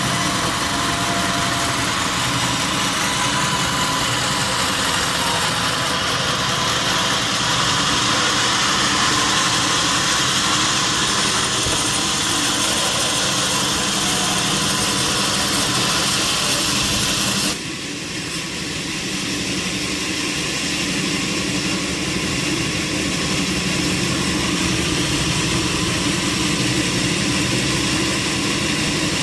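Sawmill machinery running steadily, with an engine-like drone low down and a strong high hiss. About 17 seconds in, the high hiss cuts off abruptly and the level dips, while the low machine drone runs on.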